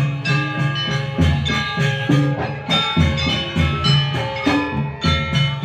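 Live percussion-ensemble music for a dance: drum strokes in a steady rhythm under ringing struck metal tones.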